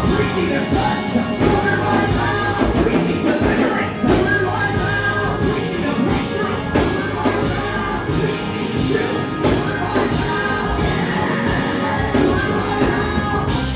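Live gospel worship music: a band playing loud with a steady drum beat, and a man singing through a microphone over it.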